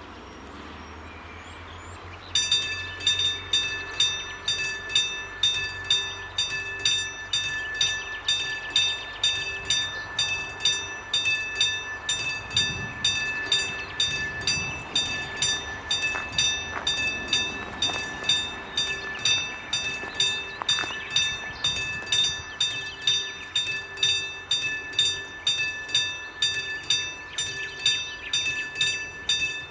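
Railway level-crossing warning bell ringing in an even, steady rhythm of about one and a half strokes a second, starting suddenly about two seconds in: the crossing is activated for an approaching train.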